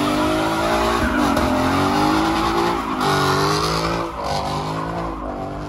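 Ford Mustang GT's 5.0-litre V8 held at high revs through a burnout, with a couple of brief dips in the engine note, while the rear tyres spin and squeal on the pavement. The sound gets quieter near the end.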